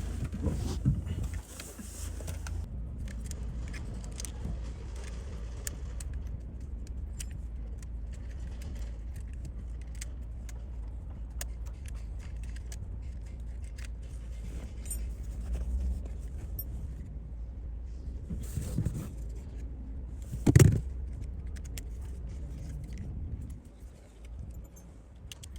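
Small metal clinks and clicks of hand tools and parts being handled, over a steady low hum, with one loud knock about twenty seconds in.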